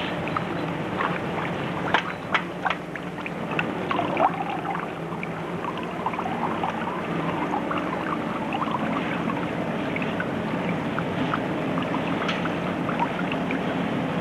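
Steady factory machinery noise with a low hum, and a few sharp clanks about two to four seconds in.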